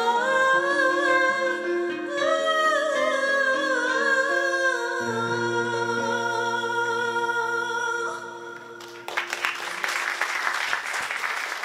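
Woman singing a melismatic Arabic-style song with instrumental accompaniment, ending on a long held note about eight seconds in. Then an audience applauds.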